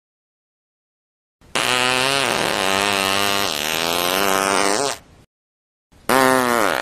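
Two fart sound effects. The first starts about a second and a half in and lasts about three and a half seconds, wavering in pitch. A shorter one near the end drops in pitch.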